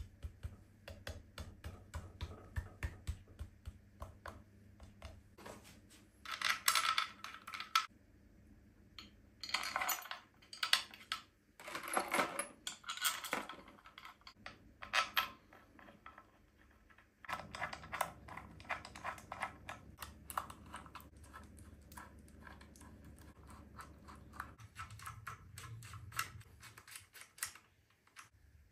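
Steel bolts rattling in a small plastic tub as they are picked out, then a hand ratchet clicking quickly as the timing-cover bolts are run in, in the second half.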